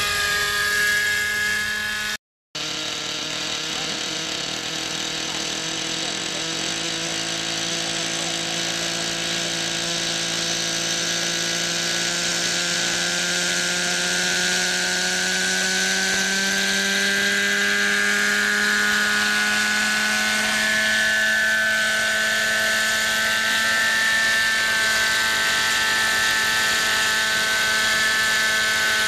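Webra 50 two-stroke glow engine of a model coaxial-rotor helicopter running with a steady, whining note. Its pitch climbs slowly for about fifteen seconds as the rotors spool up for liftoff, then holds steady. There is a brief break in the sound a couple of seconds in.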